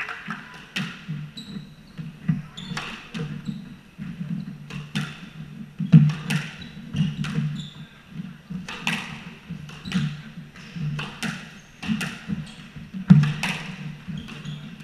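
Squash rally: the ball cracks off racquets and the walls every second or so, each hit ringing briefly around the court, with the loudest hits about six seconds in and near the end. Running footsteps thud on the wooden floor, and shoes squeak briefly now and then.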